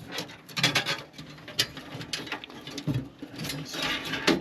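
Irregular clicks and rattles of small metal and plastic parts being handled while fitting case fans into a computer case.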